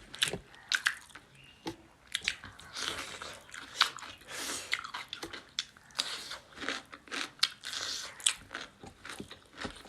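Close-up sound of people chewing and crunching food, with irregular wet clicks and smacks of the mouth.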